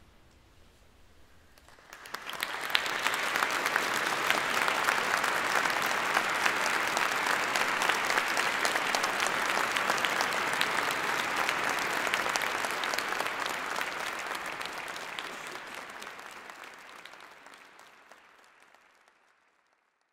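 Audience applauding. The clapping breaks out about two seconds in after a short quiet, holds dense and even, then fades out over the last few seconds.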